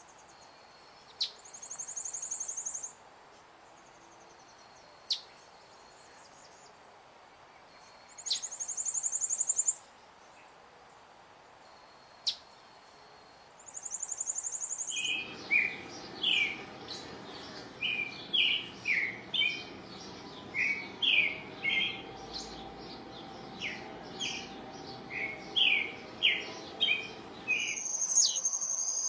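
High insect trills come in short bursts every few seconds, with single sharp descending chirps between them. About halfway through, a bird starts singing a fast, varied run of short whistled notes. Near the end a steady insect trill sets in.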